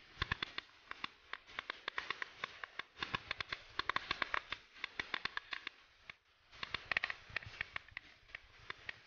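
Mountain bike rattling and clattering as it rolls fast over a rough paved track: a dense run of irregular sharp clicks and knocks from the bike's parts, easing off briefly about six seconds in.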